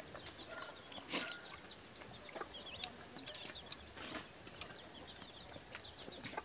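Farmyard ambience: chickens and small birds chirping over a steady high-pitched hiss, with a couple of brief soft knocks.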